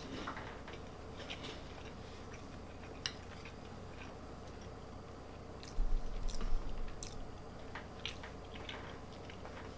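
A person chewing and biting food close to the microphone, with scattered sharp clicks. A cluster of low thuds about six seconds in is the loudest sound.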